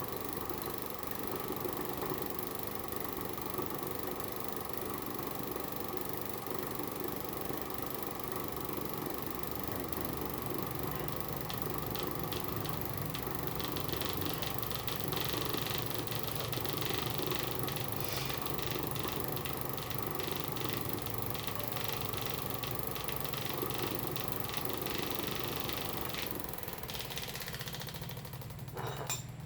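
A small electric motor running steadily with a low hum, cutting off just before the end.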